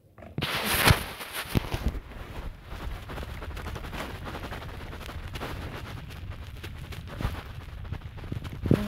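Handling noise: fingers and a resin ball-jointed doll rubbing and knocking against the phone's microphone. There is a loud rustling scrape about half a second in, then a low rumble with irregular clicks and thumps.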